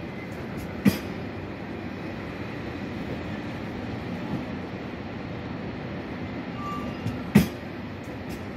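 TGV trainset rolling slowly along the platform: a steady low rumble from its wheels and running gear, with two pairs of sharp clunks, the knocks of each pair about a second apart, as a bogie's two axles pass over a rail joint. One pair comes about a second in and the other near the end.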